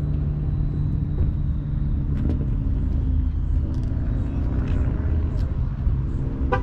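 Car engine idling, a steady low rumble, with a few light clicks on top.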